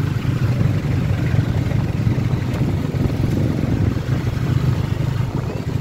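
Steady low engine rumble of slow street traffic, motor tricycles and vans running close by as they creep along.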